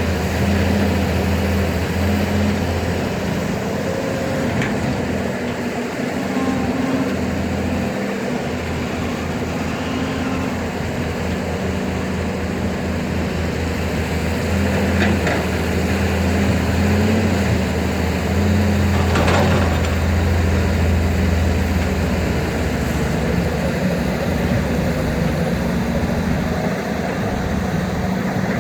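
Heavy diesel engines of excavators at work, a steady low drone that rises and falls a little, with a few brief knocks partway through.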